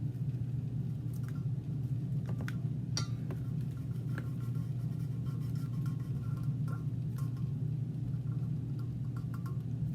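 Steady low hum, with scattered light clicks and small clinks over it.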